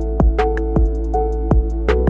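Background music with a steady beat: sustained synth chords over deep bass, with drum hits about four times a second.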